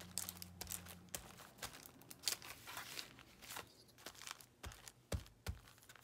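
Paper and craft materials being handled: irregular crinkling and rustling with light clicks and taps, and a few soft thumps near the end.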